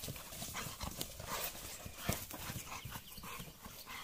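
American bulldogs at rough play, with irregular knocks and scuffles.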